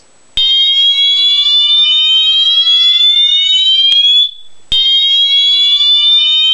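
Wheelock MT24-LSM fire alarm horn sounding its slow whoop tone: a loud electronic tone that glides slowly upward for about four seconds, breaks off briefly, then starts a second rising sweep.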